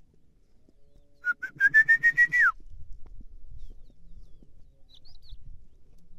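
A person whistles once to call a dog: a short whistle that starts in two or three quick bits, holds and creeps slightly upward, then drops sharply at the end, about a second and a half long.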